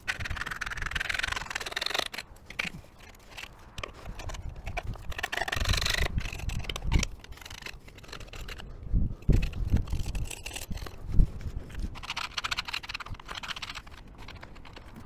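Hand scraper scraping caked grease and grime off an MGB gearbox casing in stretches, with several dull knocks in between, the sharpest about eleven seconds in.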